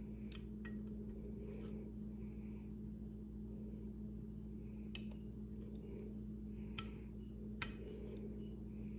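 Small sharp metal clicks and light scrapes of a small driver working the screws on a pistol's red-dot mounting plate, about five clicks in all, over a steady low hum.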